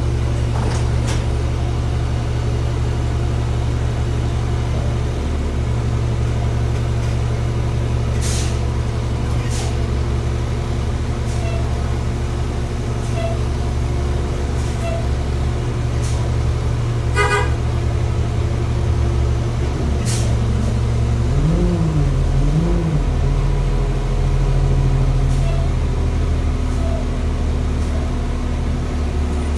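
City transit bus heard from inside the cabin while riding: the engine and drivetrain hum steadily, with a few sharp knocks and rattles. Just past halfway there is a short rapid rattle, and a few seconds later a low tone rises and falls twice.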